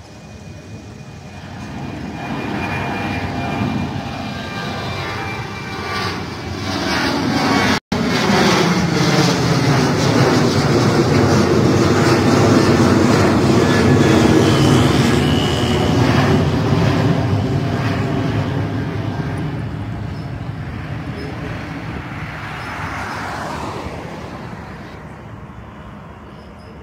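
Jet engines of a Malaysia Airlines Boeing 737 climbing out after takeoff. It is a loud rushing rumble that swells, peaks past its closest point, then slowly fades as it draws away, with sweeping tones gliding through the noise. The sound breaks off for an instant just before eight seconds in.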